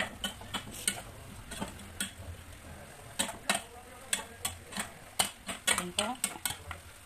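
Chicken adobo simmering in a pot on a gas burner, the sauce bubbling and popping in sharp, irregular clicks, a few every second.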